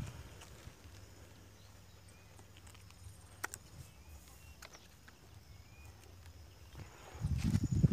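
Handling noises from a metal detector and its search coil being set on the ground: a sharp click about three and a half seconds in and low knocking and rumbling near the end. Faint short bird chirps come through in the background.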